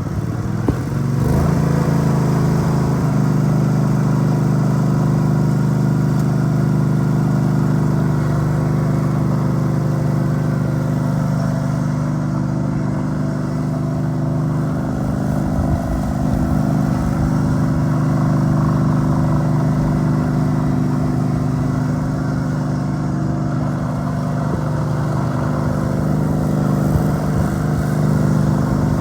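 Deutz 1613 riding lawn mower's gas engine comes up to speed over the first couple of seconds, then runs at a steady speed.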